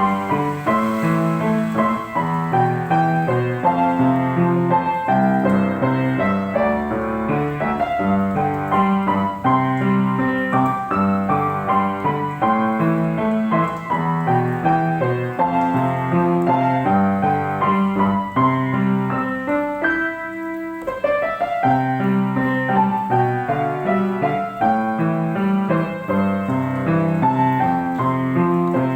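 Piano playing a slow melody over chords, note after note, thinning briefly about two-thirds of the way through before carrying on.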